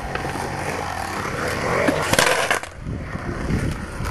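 Skateboard wheels rolling on the smooth concrete of a skatepark bowl as the rider carves, with a louder rush of noise about two seconds in.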